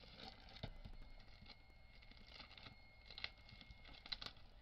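Faint crinkling and rustling of a clear plastic bag wrapped around a rolled diamond painting canvas as it is handled, with a few light irregular clicks and taps.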